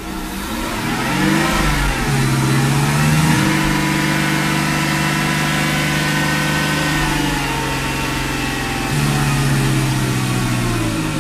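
Mercedes-Benz V8 engine revved up from idle and held at a fast idle of around 2,500–3,000 rpm. The pitch rises over the first three seconds, holds steady, lifts a little about nine seconds in and drops back near the end. It runs with its mass airflow sensor disconnected, freshly refitted throttle body, sounding very healthy.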